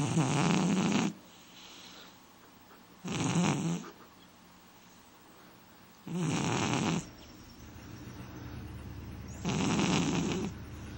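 A man snoring: four loud, rough snores about three seconds apart, each lasting about a second.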